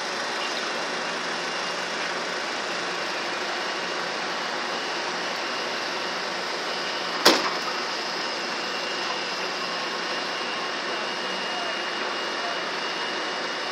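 Steady background noise of a high-rise construction site above the city, with one sharp bang about halfway through and a faint high steady whine in the second half.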